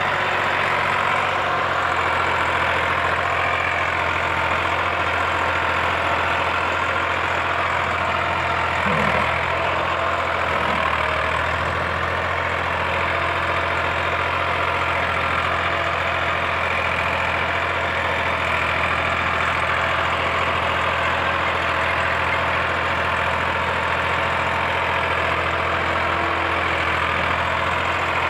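Massey Ferguson 260 tractor's diesel engine running steadily under heavy load, hauling a fully loaded trolley hard enough to lift the tractor's front wheels off the ground.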